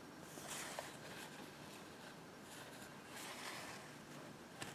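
Faint handling noises: a few soft rustles and swishes as things are moved about, and a small click near the end.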